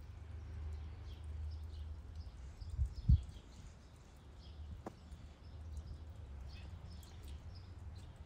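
Outdoor ambience: small birds chirping on and off over a low steady rumble, with two low thumps close together about three seconds in.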